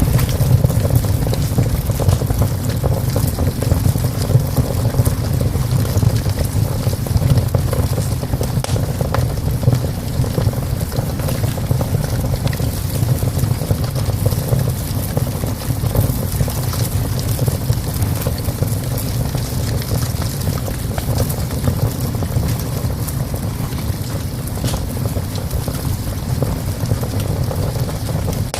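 Wood fire burning in a small stove, crackling with frequent sharp pops over a steady low rumble.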